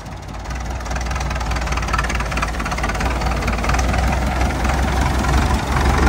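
Massey Ferguson 185 tractor's four-cylinder diesel engine running under way, getting louder over the first second as the tractor moves off close by, then running steadily.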